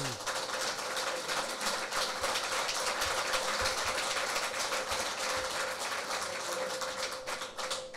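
Audience applauding: many hands clapping at once in a dense, steady patter that dies away near the end.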